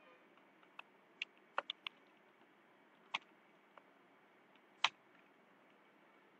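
Keystrokes on a computer keyboard, typed slowly one key at a time: about eight separate faint clicks, a few in quick succession, the loudest near the end, over a faint steady hiss.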